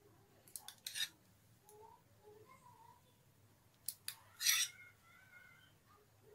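Spoon clicking and scraping against dishes as cream is spooned onto a curry. A few quick clicks come about half a second in, then another cluster around four seconds in, ending in a short, louder scrape.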